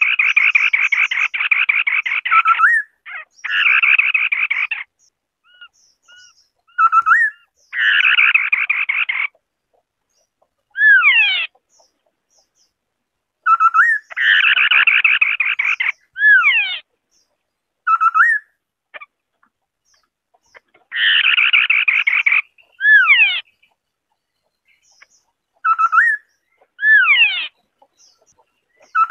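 White-browed scimitar-babbler singing: bursts of rapid trilled notes lasting one to two seconds, alternating with single steeply falling whistles and short upslurred notes, with silent gaps between phrases.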